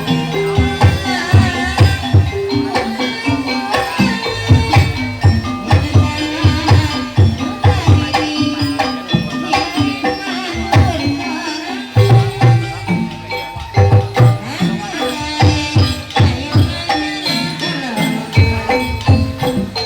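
Live kuda lumping gamelan music: kendang hand drums beating fast, loud strokes under a melody of struck metal keyed instruments, with a rattling jingle on top, playing without pause.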